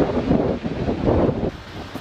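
Strong wind buffeting the microphone, a rough, gusty rushing noise that eases somewhat about one and a half seconds in.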